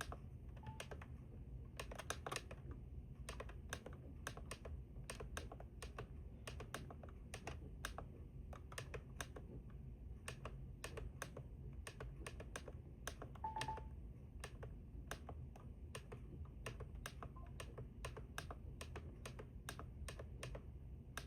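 Buttons on a Maxx Digital weather radio clicking as they are pressed quickly and repeatedly to scroll through the setup menu, with a short electronic beep about a second in and another near the middle.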